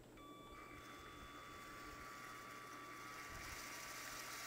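Lego Power Functions M motor driving a motorized Lego truck through a geared-down drivetrain: a faint, steady electric whine that gets a little louder over the seconds.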